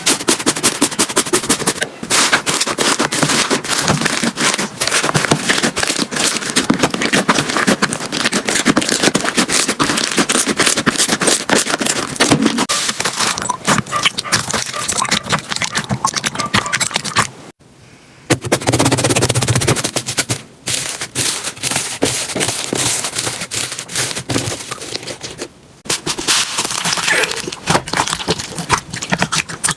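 Slime being squeezed, pressed and poked by hand, giving fast, dense runs of crackling, popping clicks, with a brief break about two-thirds of the way through.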